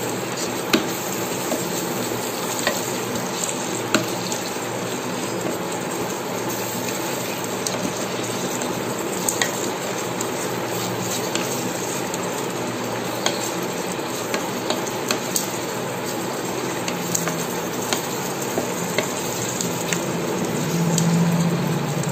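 Sliced onions, green chillies and curry leaves sizzling in hot oil in an electric cooker's pot, stirred with a wooden spatula that scrapes and taps against the pot now and then. A short low hum near the end.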